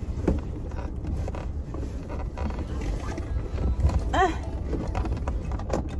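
Handling noise of a tissue-box holder being fitted onto a car sun visor: scattered small clicks and rustles over a steady low rumble. A brief hum of voice sounds about four seconds in.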